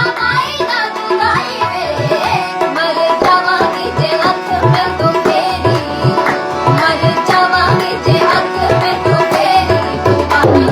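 Indian classical-style music in an instrumental passage: tabla playing a steady rhythm, its low drum strokes bending in pitch, under a sustained melodic accompaniment.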